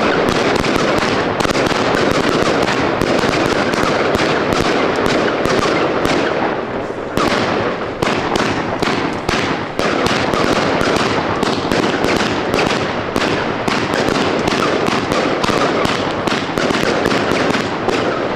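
Fireworks going off in a rapid, unbroken crackle of small bangs, many a second, with a brief lull about seven seconds in.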